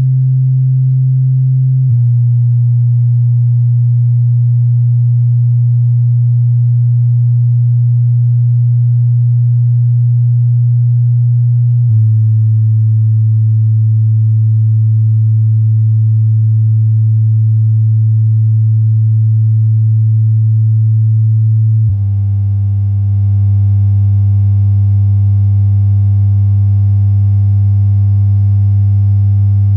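MTX car subwoofer, driven by a monoblock amplifier, playing loud steady low bass test tones. The tone steps down in pitch three times, about every ten seconds.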